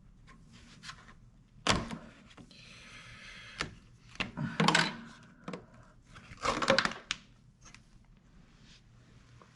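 Sharp knocks and clatters of hand tools and metal parts on a scooter, with a short rasping noise lasting about a second early on, as the screws holding the Vespa's floor mat are undone.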